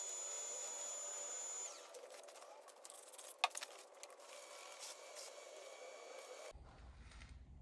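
Laguna Revo wood lathe running with a steady high whine, an abrasive pad hissing against the spinning maple and purpleheart ornament. About two seconds in, the whine slides down in pitch and stops as the lathe winds down. Faint clicks follow, with one sharp tap, and near the end a low hum comes in suddenly.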